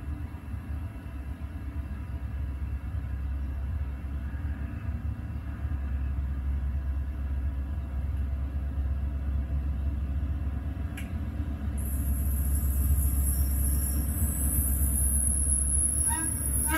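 HST (InterCity 125) diesel train approaching, a steady low rumble that grows louder as it nears. A high-pitched whine joins in about twelve seconds in.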